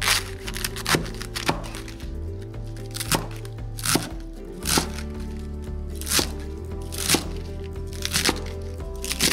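Cleaver chopping cabbage on a wooden cutting board: crisp blade strikes about once a second, now and then two in quick succession. Background music with a steady bass runs underneath.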